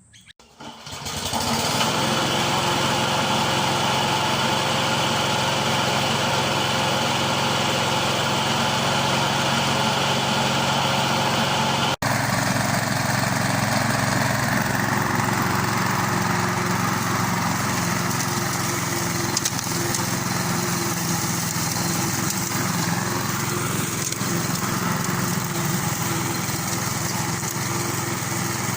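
Freshly serviced Briggs & Stratton lawnmower engine starting about a second in and then running steadily at speed, with no bogging or missing. After a brief break near the middle the engine carries on running with a slightly changed tone.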